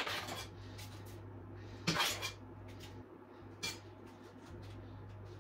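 Paper cupcake liners being handled and set into a metal muffin tray: light rustling with a couple of short clatters, the loudest about two seconds in and another near four seconds, over a low steady hum.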